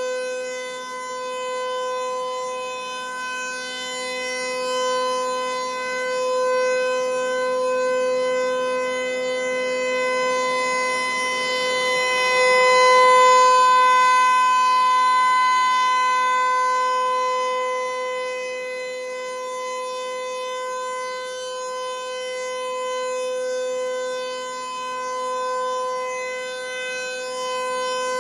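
Federal Signal 508-128 electromechanical rotating outdoor warning siren sounding a steady alert tone at full speed. The pitch holds level while the loudness swells and fades as the rotating horn sweeps past, loudest around halfway through.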